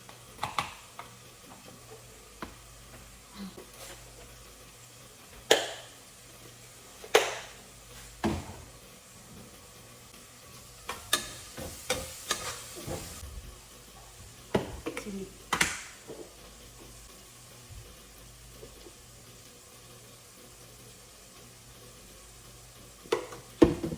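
Spices frying in a pan while being stirred: a utensil knocks and scrapes against the pan at irregular moments over a faint sizzle.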